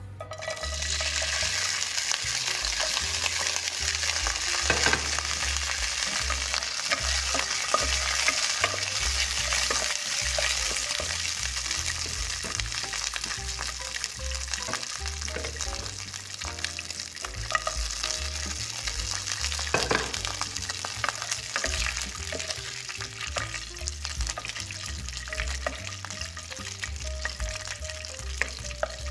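Small chopped pieces frying in hot oil in a metal pot, sizzling steadily, with a wooden spatula stirring and scraping against the pot. Soft background music plays underneath.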